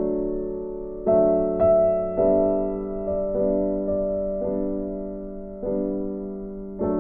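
Background music: a slow piano tune, chords struck about once a second and each left to fade away.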